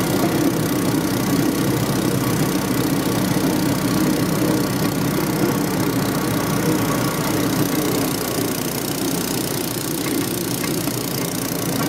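Small engine of a motorized rail cart running at a steady pitch as it rolls along the track at a slow, leisurely pace.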